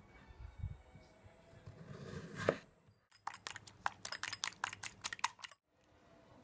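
A knife slicing potato on a plastic cutting board, with a sharp knock about two and a half seconds in; then a metal utensil beating eggs in a ceramic bowl, a quick run of clinks about five a second that stops abruptly after about two and a half seconds.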